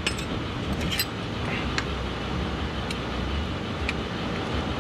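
Light metallic clicks of Allen (hex) keys being handled and tried for size on a bolt, a handful of them spread over a few seconds, over a steady low hum of shop background noise.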